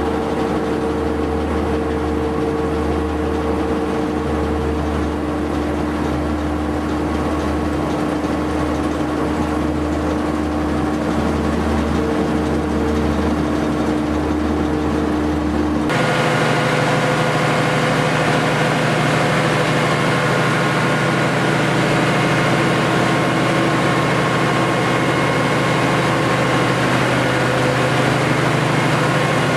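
Diesel machinery in a ship's engine room running steadily, a loud continuous drone. About halfway through it changes abruptly from a deep hum to a somewhat higher-pitched one.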